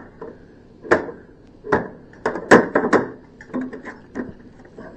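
A series of knocks and clicks as a cover panel on an ultrasound machine is handled and fitted back into place, its catches being seated into their slots.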